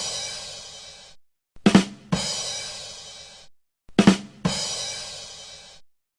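The "ba dum tss" drum sting on a drum kit, played twice: two quick drum hits, then a cymbal hit that rings for about a second and cuts off. It opens on the ringing tail of the previous cymbal, and the sting repeats about every two and a half seconds.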